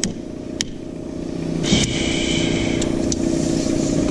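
A large engine running at a steady idle, with a few sharp clicks near the start. About two seconds in, a tape measure blade rasps out of its case for about a second.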